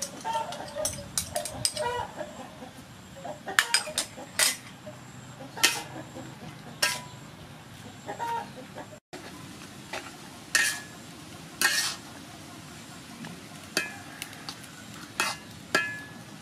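Metal spatula clanking and scraping against a metal wok as beef and greens are stir-fried, with repeated sharp strikes, some ringing briefly, over a light sizzle. Chickens cluck in the background.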